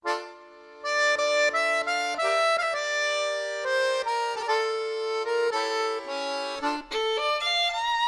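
Background music: a held melody over sustained chords, starting suddenly out of silence.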